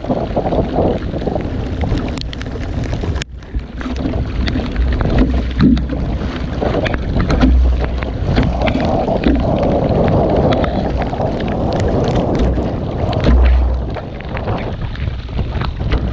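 Gusty wind buffeting the microphone in strong gusts, over the splashing and slapping of choppy waves against a canoe as it is paddled through rough water.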